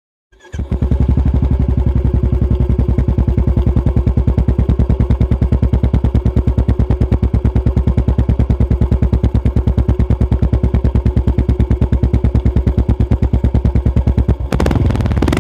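Royal Enfield Classic 350 BS6 single-cylinder engine idling through a slash-cut exhaust, an even, fast beat of exhaust pulses. Near the end the steady beat gives way to a rougher, uneven sound.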